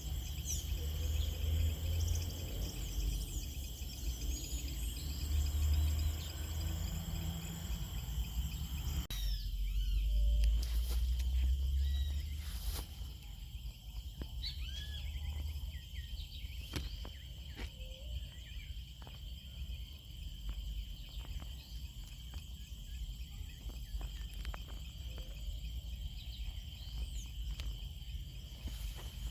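Outdoor tropical ambience: a steady, high-pitched insect drone with scattered short bird chirps over it. A low rumble underneath is loudest in the first twelve seconds and then drops away.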